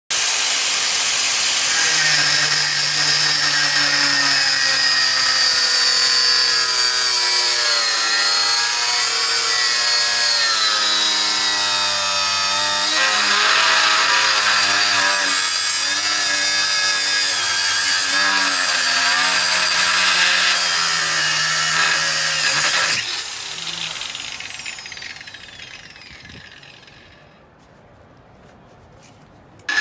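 Makita GA5030R mains-powered angle grinder cutting into a bike lock, its motor pitch wavering under load. About three quarters of the way through it is switched off and winds down with a falling whine, then starts up again abruptly at the very end.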